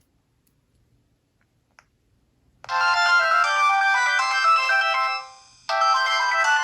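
Sony Ericsson W950i mobile phone ringtone. After a couple of seconds of near silence and a faint click, a melodic electronic tune starts abruptly. It fades out after about two and a half seconds, then starts over.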